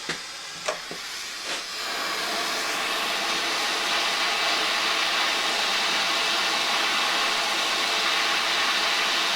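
A few light clicks, then a gas torch flame hissing steadily from about two seconds in, heating the carburetor's stuck brass main jet to break down the old fuel varnish so it can be unscrewed.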